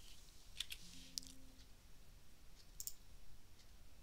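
Faint computer mouse clicks: a few scattered single clicks and a quick pair near the end, with a brief faint low hum about a second in.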